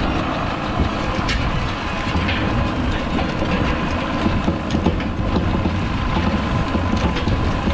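Tractor pulling a water-weighted roller crimper through standing rye: a steady engine drone with the clatter of the rolling drum.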